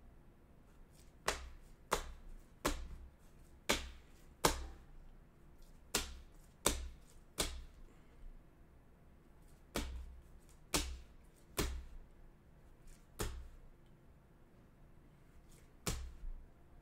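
Rigid plastic top loaders holding trading cards clacking against one another as a stack is flipped through card by card: about a dozen sharp clicks, irregularly spaced roughly a second apart.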